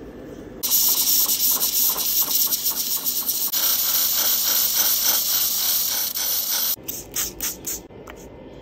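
Scissor blade being ground on a flat rotating abrasive disc: a loud hiss with a fast pulsing grate, starting suddenly about a second in and cutting off near seven seconds. A few short rasps follow as the blade is rubbed on a flat sharpening stone.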